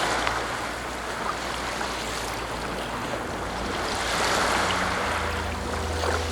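Black Sea surf washing onto a sandy beach: a steady rushing hiss that swells twice, at the start and again about four seconds in.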